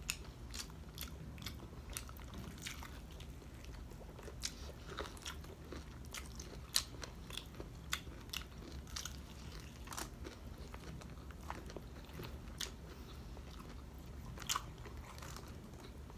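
Close-up eating sounds: crisp breaded fried pork chop and vegetables being bitten and chewed, with sharp, irregular crunches throughout.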